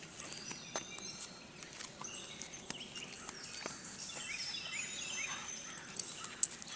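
Several small birds chirping and whistling, with short notes and quick falling whistles overlapping, busiest around the middle. Scattered light footstep clicks on a paved path run underneath, with one sharp click near the end.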